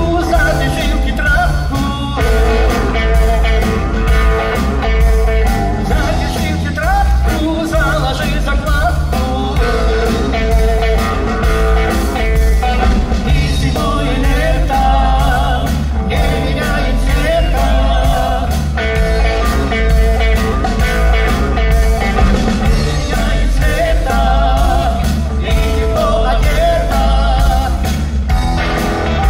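Live rock band playing amplified through a PA: guitars over a drum kit with a steady beat and wavering melodic lines.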